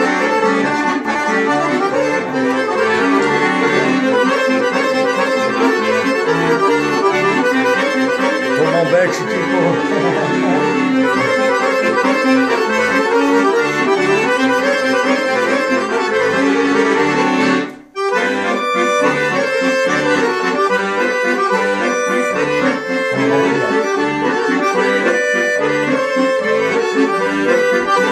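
Two chromatic button accordions, one a Dallapé, playing a tune together in duet. About two-thirds of the way through the sound drops out sharply for a split second, then the playing carries on.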